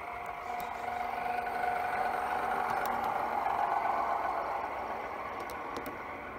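A 1:32 scale battery-powered model of the Burlington Zephyr running past, its wheels rolling on the track with a steady whir and a faint whine, growing louder to a peak about halfway through and then easing off.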